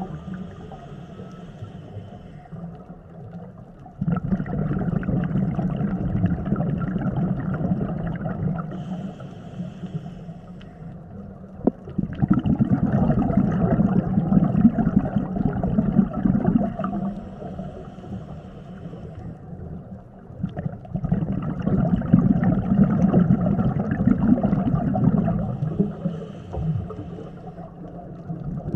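Scuba diver breathing through a regulator underwater: slow breaths, each a short hissing inhalation followed by several seconds of loud exhaled bubbles gurgling out of the regulator.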